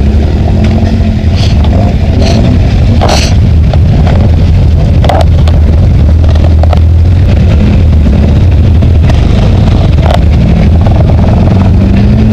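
Off-road vehicle engine running steadily at idle close by, with a few brief knocks.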